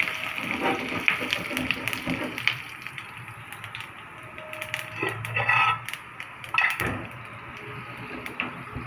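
Whole spices, curry leaves, garlic and dried red chillies sizzling in hot ghee, with many sharp crackling pops that are densest in the first few seconds. A couple of metal knocks from cookware come in the second half.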